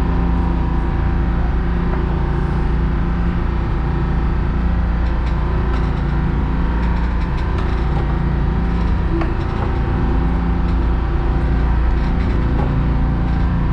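A charter fishing boat's engine running steadily under way, heard on board as a loud, even low drone with a steady hum.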